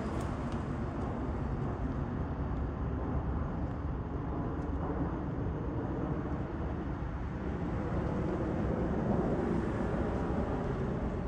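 Business jet flying overhead and away, a steady, low jet engine rumble.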